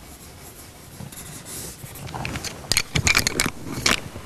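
Coloured pencil rubbing softly on drawing paper, then from about two seconds in a quick run of sharp clicks and rattles: pencils being picked through on the easel's ledge to change colour.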